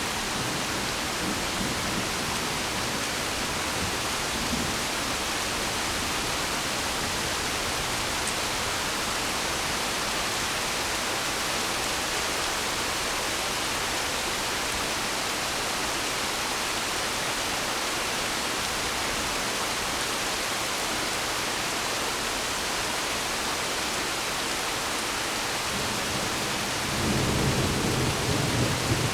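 Steady rain falling in a thunderstorm, an even hiss, with a low rumble of thunder rolling in about two seconds before the end.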